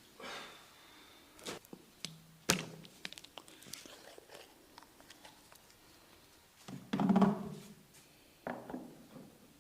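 Hand strikes of a massage on the body: several dull thuds and slaps. The sharpest comes about two and a half seconds in, and a longer, heavier cluster comes around seven seconds.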